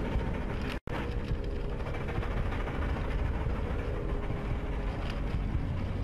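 Roller coaster chain lift running as the train climbs the lift hill: steady mechanical noise with a faint hum, broken by a split-second gap of silence about a second in.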